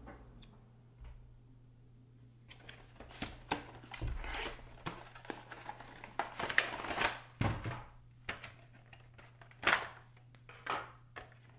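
Clear plastic blister packaging crinkling and rustling, with sharp clicks and snaps, as a plastic carrier-deck section is worked out of it. The handling starts about two and a half seconds in.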